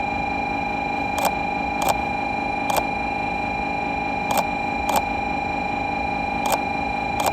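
A steady electrical hum made of several fixed tones, broken by sharp clicks in groups of two or three, about half a second apart.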